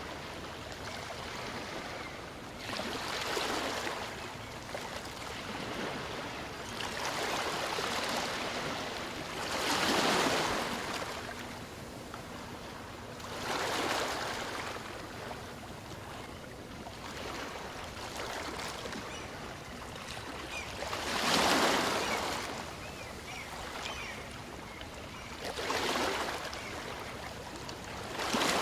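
Small waves of a calm sea breaking and washing up a beach: a swell of surf every three to five seconds, about seven in all, the biggest about two-thirds of the way through, over a steady hiss of moving water.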